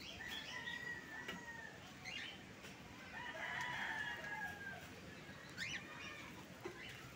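A rooster crowing, its longest and loudest call about three seconds in, with a few short bird chirps near the end.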